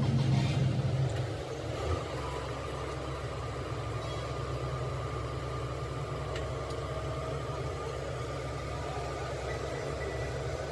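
An engine running steadily at idle, a little louder for the first second or so.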